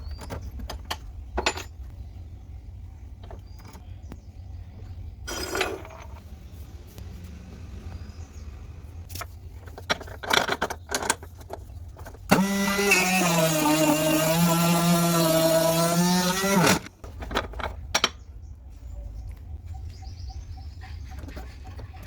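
Scattered clicks and knocks of handling, then a 775 DC motor drill press runs at speed for about four and a half seconds with a steady whine that wavers a little in pitch, switching on and off abruptly.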